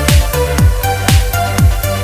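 Electronic dance music with a steady kick drum about twice a second and sustained synth notes.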